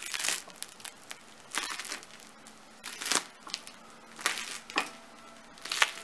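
Crisp crust of a freshly baked round loaf of white bread crackling as fingers press on it, in several short bursts, the loudest near the end.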